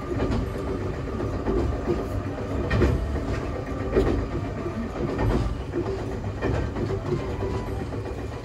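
A Nagano Electric Railway 1000 series limited express (ex-Odakyu Romancecar) running along the line, heard from inside its front observation cabin. A steady low rumble of the running gear, with the wheels clicking over rail joints about once a second.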